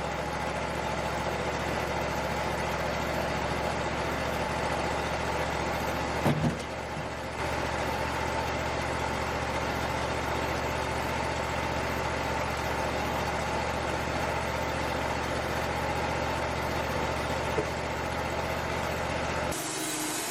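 Wood-Mizer LT35 portable sawmill's engine running steadily at idle, with a brief sharp knock about six seconds in; the engine sound cuts off suddenly near the end.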